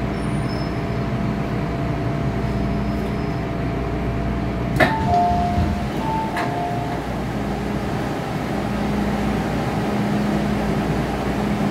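MTR M-Train running with a steady hum as it stops at a platform. About five seconds in, a sharp clunk comes as the doors release, and a two-note falling chime sounds twice while the sliding doors open.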